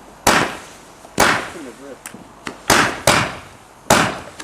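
Fireworks going off: five sharp bangs at uneven intervals, each trailing off in an echo, two of them close together near the three-second mark.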